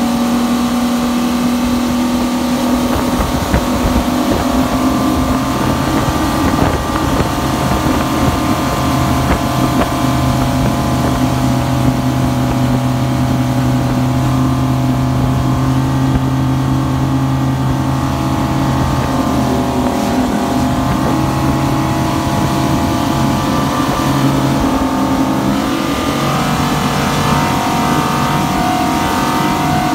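Yamaha XTO 425 V8 outboard motor running hard under way, a loud, steady engine note over the rushing water of the wake. The engine note shifts slightly near the end.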